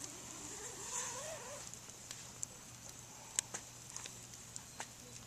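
Campfire crackling: scattered sharp pops, the loudest about three and a half seconds in, over a steady hiss. A faint wavering sound, voice-like or animal-like, rises and falls in the first second and a half.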